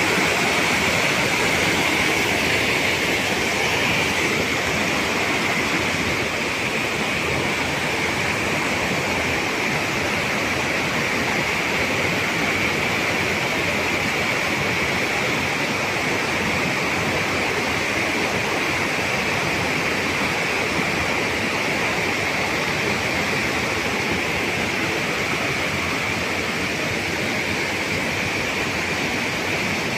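A rocky mountain stream spilling over boulders in small falls: a steady, even rush of water, slightly quieter after the first few seconds.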